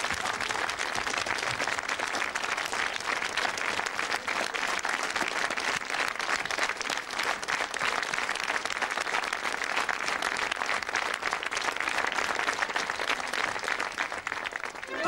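Studio audience applauding steadily, a dense even patter of many hands clapping.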